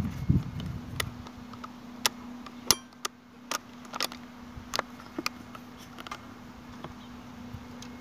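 Scattered sharp clicks and ticks at irregular intervals, with a brief low rumble at the start and a steady low hum underneath.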